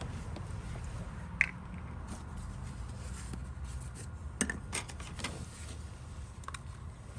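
A few short clicks and taps from handling wound-care supplies: a sharp one about a second and a half in, then a quick cluster around four and a half to five seconds. Under them runs a steady low rumble.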